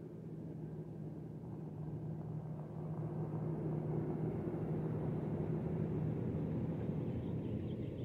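Low, steady engine rumble from a distant vehicle, swelling over a few seconds and easing off near the end.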